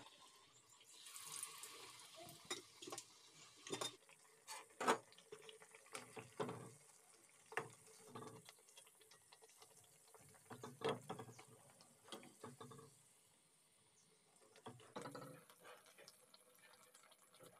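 Corn fritters deep-frying in hot oil in an iron kadai: a faint sizzle with irregular crackles and pops.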